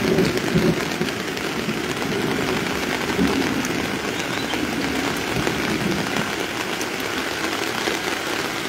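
Heavy rain falling steadily on floodwater, a dense even hiss.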